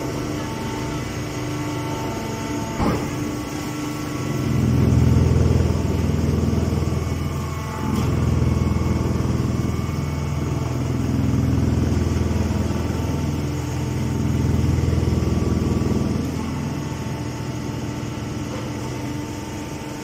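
Hydraulic rice-straw baling press running: a steady machine hum that swells louder four times, a few seconds apart, with a single knock about three seconds in.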